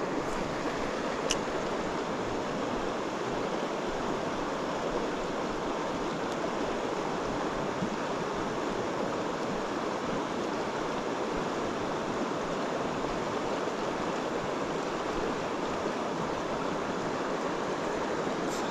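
Fast mountain river current rushing steadily, an even, unbroken sound of flowing water.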